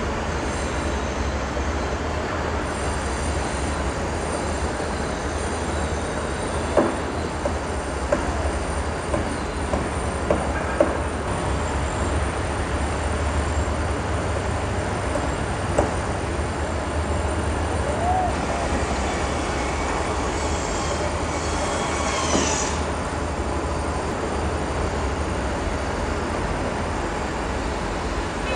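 Construction-site ambience: a steady low rumble of machinery, with a handful of sharp metallic knocks and clanks between about six and sixteen seconds in. A high-pitched rising squeal follows about two-thirds of the way through.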